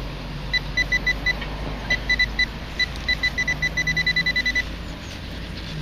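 Metal-detecting pinpointer giving short, high electronic beeps, irregular at first, then quickening into a rapid run that stops about four and a half seconds in: the probe closing in on a small coin buried in the loose dug soil.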